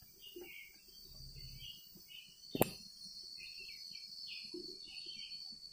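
Faint scratching and short squeaks of a marker pen writing on a whiteboard, coming in irregular clusters with the strokes, with one sharp click about two and a half seconds in.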